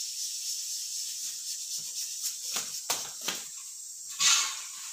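A few light clinks of steel cooking utensils and a short rustle about four seconds in, over a steady high chirring hiss of insects in the trees.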